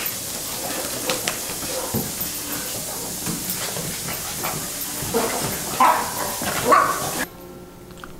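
Small dogs scuffling during play, with a few short barks about six to seven seconds in, over a steady hiss.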